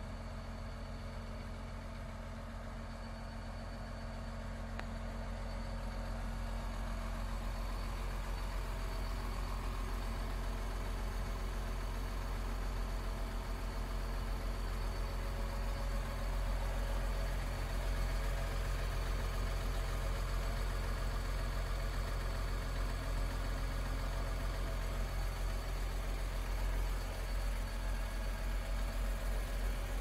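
Beiben concrete mixer truck's diesel engine idling steadily, a low even hum that grows a little louder about five seconds in.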